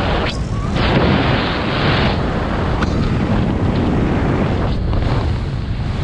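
Rushing wind buffeting a body-worn camera's microphone during a fast fall through the air. The rush is loud and steady, with a few brief dips.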